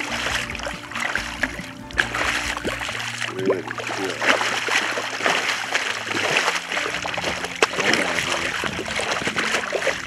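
Water splashing and sloshing irregularly, with background music underneath.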